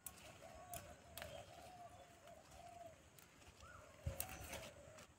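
A dove cooing softly over and over, a low wavering call. A few sharp clicks and a louder thump about four seconds in.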